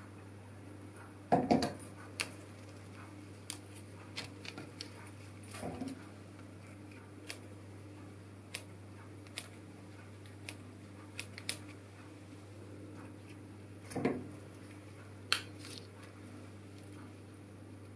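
Handling noise of a florist's tools and flowers on a paper-covered worktable: scattered light clicks and taps, with two louder thumps about a second and a half in and again near fourteen seconds, over a faint steady low hum.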